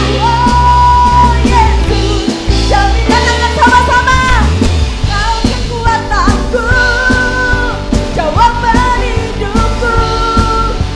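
Indonesian praise-and-worship song sung over a live band of keyboard, electric guitar, bass guitar and drums, with several long held sung notes.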